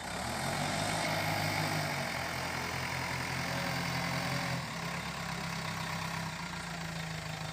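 Backhoe loader's diesel engine running, louder for the first four and a half seconds, then dropping back to a lower, steady idle.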